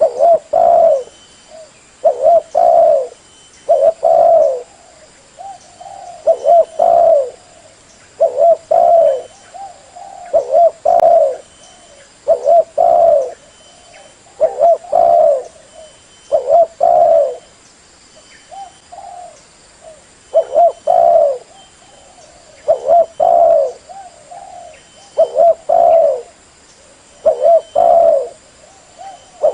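Spotted dove cooing over and over: loud low notes, mostly in close pairs, repeating about every two seconds, with softer short coos between them. It is a decoy dove call played to lure wild doves.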